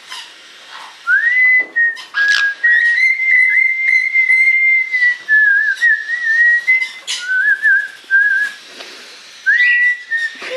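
A person whistling a short warbling tune for a young parrot to copy: one clear whistled note that glides up, holds, wavers and steps down, stopping briefly near the end before starting again.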